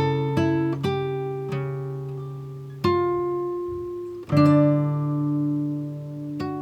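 Background music: acoustic guitar playing slow plucked notes and chords that ring out and fade, with fresh chords struck about three seconds in and again past four seconds.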